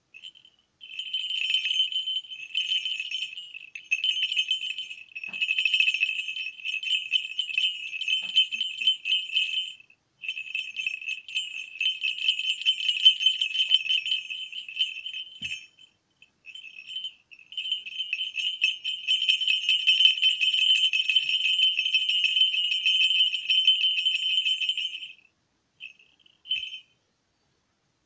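A pair of 18 mm falconry bells shaken by hand, jingling with a bright, high ring. The ringing comes in long spells with short breaks about a third and about halfway through, and stops near the end after a couple of brief jingles.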